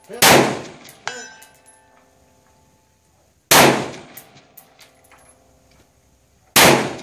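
Three rifle shots at a 3-gun match, about three seconds apart, each with a long echoing tail. Just under a second after the first, a distant steel target rings as it is hit.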